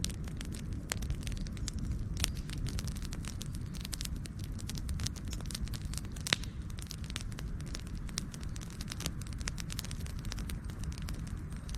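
Campfire burning, with a steady low rumble of flames under frequent sharp crackles and pops, one louder pop about six seconds in.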